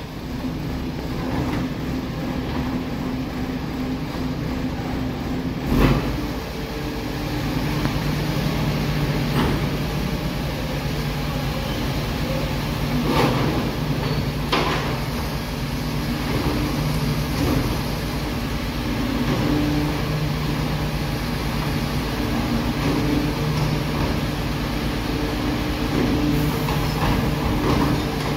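MAN TGS 26.320 garbage truck's six-cylinder diesel running steadily to drive the hydraulic bin lifter as it raises and tips a wheelie bin, its note shifting about six seconds in. A sharp clunk comes at that moment, and a few knocks follow around midway.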